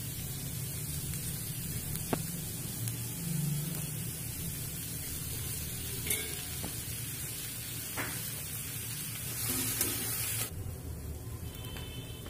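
Sliced onions sizzling in oil in a non-stick kadhai as they are sautéed toward browning, with a few light clicks of a spatula against the pan. The sizzle drops off abruptly about ten seconds in.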